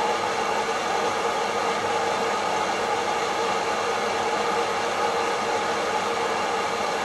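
Kaffelogic hot-air coffee roaster running mid-roast: its fan blows a steady whir and hiss of air through the roast chamber, with a faint even hum underneath.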